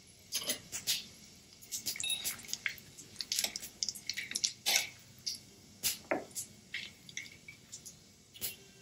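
Cumin and whole spices crackling and popping in hot oil in a steel kadhai while being tempered, as a run of irregular sharp pops and clicks.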